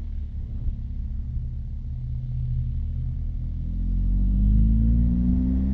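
Motorcycle engine running over a low wind rumble on the microphone; a little past halfway its pitch rises steadily as the bike accelerates.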